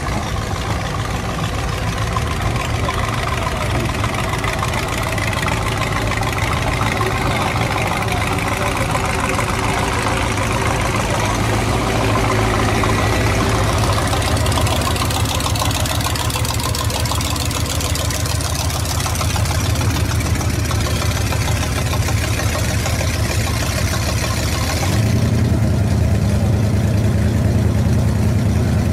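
Hot rod coupe's engine, with two carburettors, running at a low steady idle as the car moves slowly past. About 25 seconds in, a louder, steady low engine note takes over.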